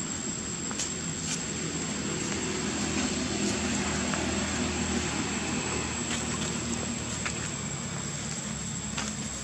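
A distant engine droning steadily, swelling a little in the middle, with a thin steady high whine over it and a few faint ticks.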